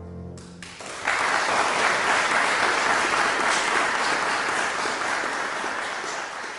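The last chord of a Salani grand piano dies away, then applause breaks out about a second in and keeps going.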